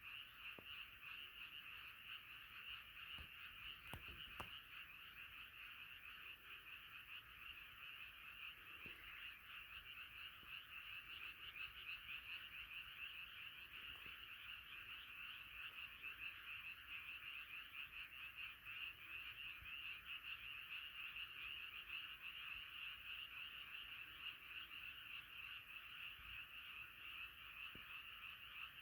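A faint, dense chorus of many frogs calling at once, their overlapping calls merging into one continuous high-pitched trilling.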